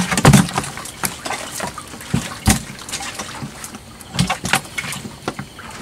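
Water splashing and sloshing, broken by irregular knocks, the sharpest about a third of a second in, about two and a half seconds in, and just after four seconds.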